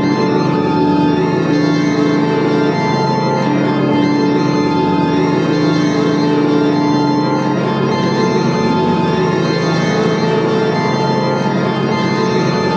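Live drone music: an organ-like keyboard sound holding sustained chords at a steady level, the held notes shifting slowly every few seconds.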